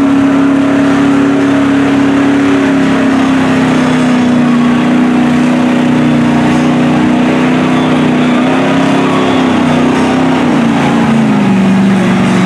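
Lifted mud truck's engine held at high revs as it plows through a deep mud pit, its pitch sagging slowly under the load and dropping further near the end, over the noise of the tyres churning mud.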